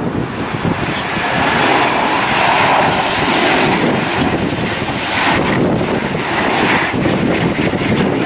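Jet engines of a Southwest Boeing 737 airliner on landing approach: a steady engine noise that grows louder about a second and a half in as the plane comes low over the runway.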